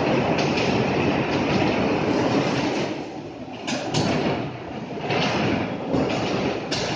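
Electric ground-grid bumper cars running over the metal floor, a steady rolling rumble with several sharp knocks through the middle and latter part.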